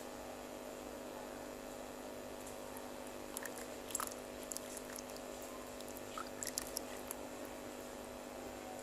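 Faint chewing and mouth clicks of someone eating, in two short clusters about three and a half and six and a half seconds in, over a steady low hum.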